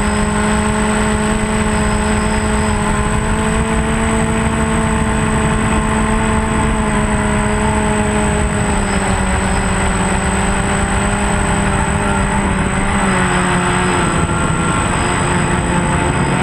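Multirotor drone's electric motors and propellers droning steadily, heard from the camera on the drone itself, with wind rumble and a thin high whine underneath. The motor pitch wavers and drops slightly about thirteen seconds in.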